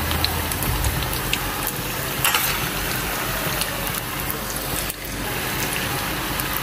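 Hot oil sizzling steadily as breaded chicken pieces deep-fry in a karahi, with scattered small crackles and pops.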